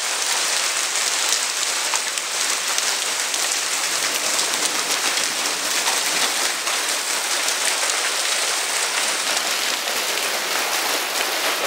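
Heavy hailstorm: hailstones of about 4 to 5 cm falling steadily, a dense hiss made of countless small impacts.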